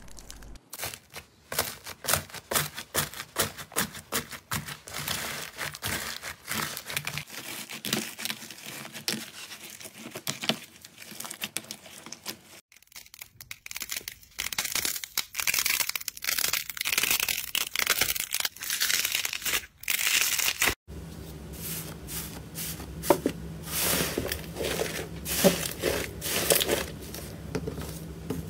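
Slime being peeled, pressed and squeezed by hand: dense crackling and popping clicks with crinkling plastic as a cut bottle mould is pulled off. The texture of the sound changes abruptly twice as one slime gives way to another.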